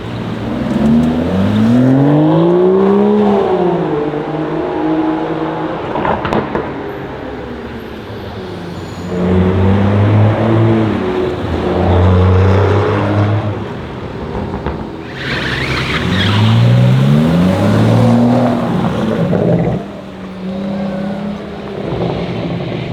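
Aston Martin DBS Superleggera's 5.2-litre twin-turbo V12 accelerating, its engine note rising in pitch twice, with steadier running in between and a single sharp exhaust pop about six seconds in.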